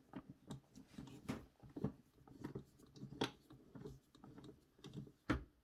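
Screwdriver turning a stock CPU cooler's mounting screws a little at a time, giving irregular small clicks and scrapes of metal on metal.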